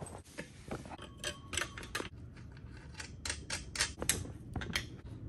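Irregular small metal clicks and clinks as a bolt and nuts are handled and fitted against the steel pole connectors of a carport tent frame.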